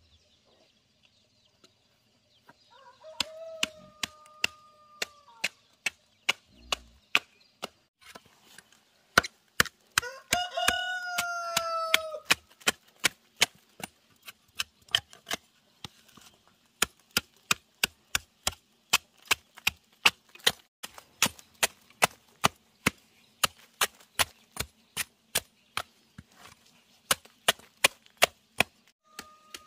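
Machete blade chopping chips off a block of wood in sharp strokes. They come slowly at first, then steadily at two to three a second. A rooster crows twice, about three seconds in and again about ten seconds in.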